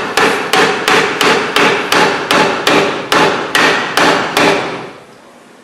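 Hammer striking the edge of a rusted, seized rear brake drum on a 1970 VW Variant, about three blows a second, each leaving a metallic ring; the blows stop near the end. The drum is being knocked to break it free of brake shoes thought to be stuck to it.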